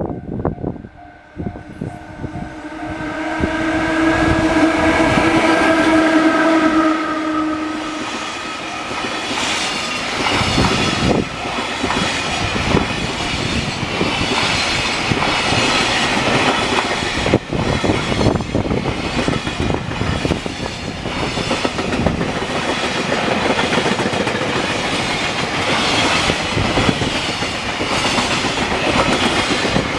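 A freight locomotive sounds one long horn blast of several pitches at once, lasting about five seconds. It then rolls past with its train of wagons, wheels clattering over the rail joints without a break.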